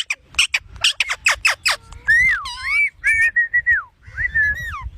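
Bird calls: a quick run of sharp chirps sweeping down in pitch, then longer whistled notes that rise and fall.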